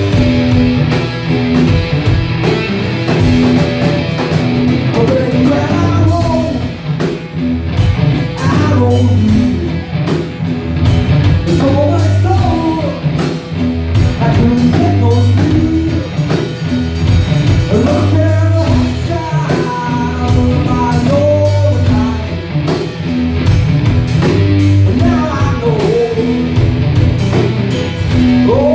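Live rock band playing amplified music with a singer: steady bass and drums throughout, with the vocal line coming in about six seconds in.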